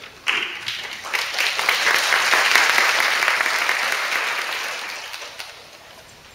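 Audience applauding: a burst of clapping that swells over the first two to three seconds, then dies away.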